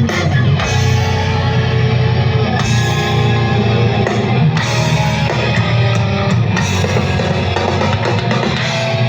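Live band playing loud rock music at a sound check: distorted electric guitar with bass and a drum kit, holding sustained chords.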